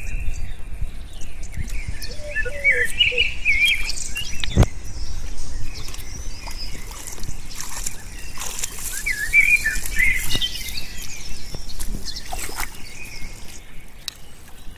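Small birds chirping in two short spells, over splashing and sloshing of shallow muddy water as hands grope through it. A single sharp knock sounds a little before the middle.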